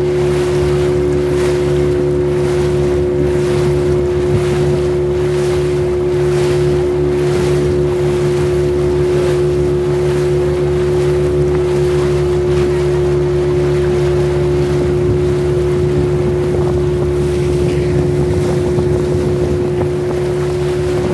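Motor boat's engine running at a steady pitch while under way, with a rhythmic swish of water against the hull over the first several seconds and wind on the microphone.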